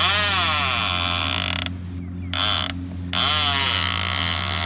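Baitcasting fishing reel being cranked, its gears whirring and clicking, stopping briefly twice about two and three seconds in, over a steady low hum.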